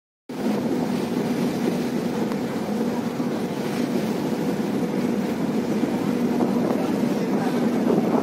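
Steady drone of a ship's engines heard on the foredeck of a moving vessel: a constant low hum under a broad rushing hiss. It cuts in abruptly just after the start.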